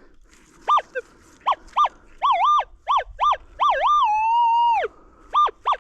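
Metal detector target tones as the search coil is swept back and forth over a buried target: a quick run of short beeps, several dipping down in pitch and back up, and one longer tone about four seconds in that drops off. The signal is mixed, reading both ferrous and non-ferrous.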